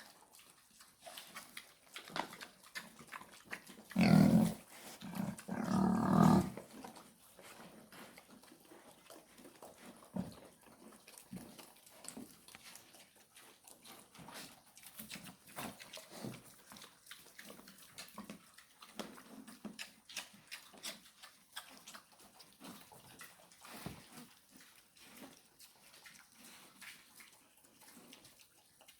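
Large White × Landrace cross pigs grunting, three loud grunts between about four and six and a half seconds in, followed by faint scattered clicks and rustles.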